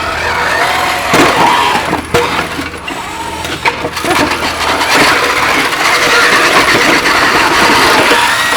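Small combat robots fighting: electric drive motors whining and revving up and down, with repeated clattering knocks as the robots hit each other. A denser steady motor sound takes over about halfway through.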